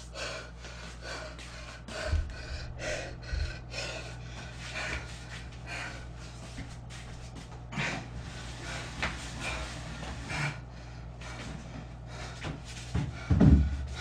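A man's heavy, quick breathing close to the microphone, a rapid run of breaths or snorts, then one loud low thump near the end.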